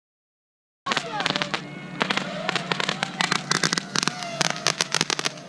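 Silence, then about a second in, fireworks start crackling: a dense, rapid string of sharp pops that goes on without a break, with voices in the background.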